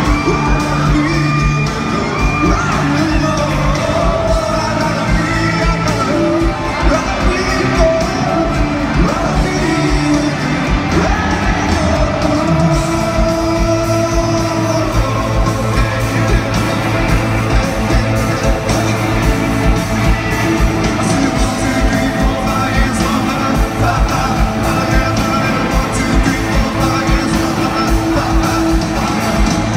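Rock band playing live in an arena: drums, electric guitars and bass with a male lead singer, at a steady loud level with the hall's echo.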